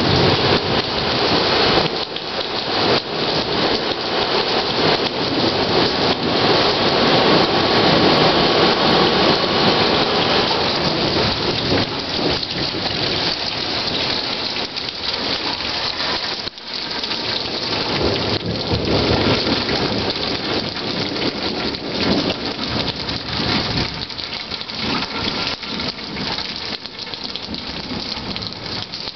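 Rain falling steadily and loudly, with thunder rolling low beneath it for long stretches.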